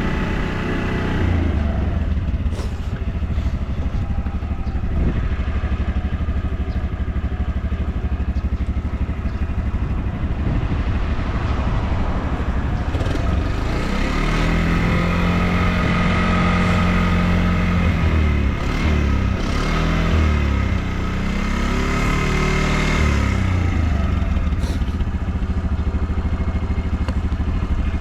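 Honda Motra's 49 cc four-stroke single-cylinder engine running at idle, with its revs rising and falling several times from about halfway through. The engine runs with no abnormal noises, as the seller describes it.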